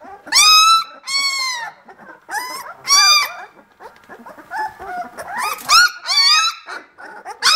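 Vizsla puppies about 18 days old squealing and whining while play-wrestling: a series of short, high calls that arch up and fall, the loudest three in the first three seconds, then a quicker run of smaller ones near the end.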